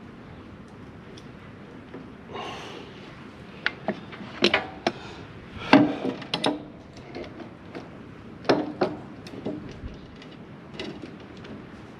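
Hand tools and metal parts knocking and clanking as work goes on: a string of sharp, irregular knocks, the loudest about six seconds in, with a short scrape at about two and a half seconds.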